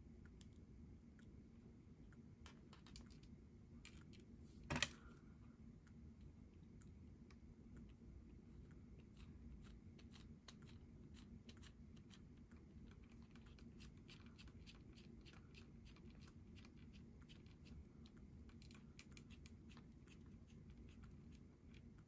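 Faint clicks and light ticking of small plastic and metal parts being handled and fitted together, with a small hex driver turning a tiny screw into a 1/24-scale RC crawler's transmission housing; one sharp click about five seconds in stands out above the rest. A faint steady low hum lies under it all.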